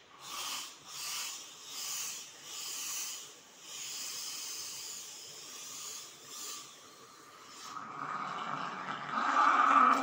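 Espresso machine steam wand hissing: four short bursts of steam, then a steady hiss. Near the end the wand is in a glass of water and the steam bubbles and rumbles through it, louder, as it heats the water.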